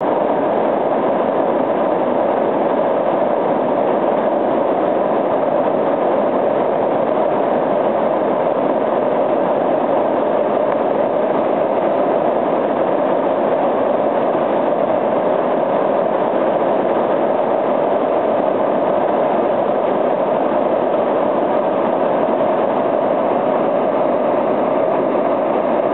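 Whitewater rapid: river water rushing loudly and steadily over rocks, with no rhythm or pitch.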